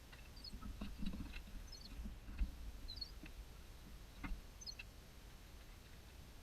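Quiet handling noise of a few soft knocks and clicks, with a small bird chirping in short high bursts every second or two.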